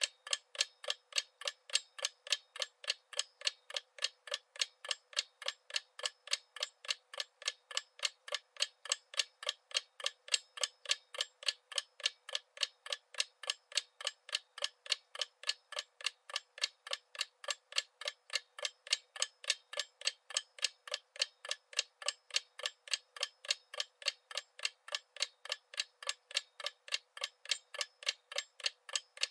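Clock ticking sound effect: rapid, even ticks, several a second, thin with no bass.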